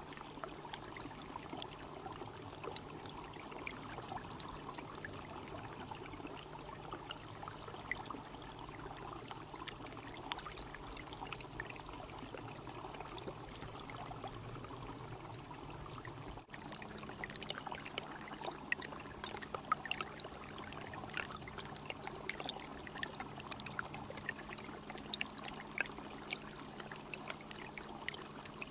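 Water trickling and dripping, with many small separate drips; the drips grow busier after a sudden cut partway through.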